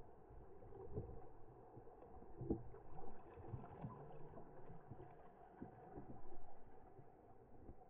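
Muffled water sloshing and lapping against a camera sitting at the surface of a swimming pool, rising and falling in uneven surges.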